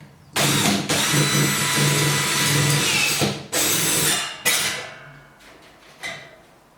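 Power drill running at full speed into the ceiling in three bursts: one of about three seconds, then a shorter one and a brief final spurt, before it stops.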